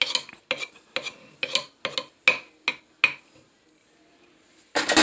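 Wooden pestle and metal spoon knocking in a clay mortar about three times a second as green papaya salad is pounded and turned. The knocking stops about three seconds in, and a short, louder clatter follows near the end.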